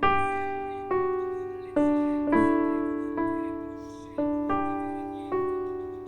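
Background music: a slow piano piece, single chords struck about once a second and left to ring out and fade.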